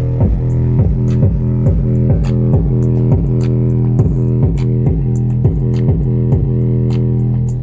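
Bass-heavy music played loud through a Lelong LE-707 portable speaker in a homemade box: a steady deep bass line and a kick beat about twice a second. There is so much bass that the box can't take it.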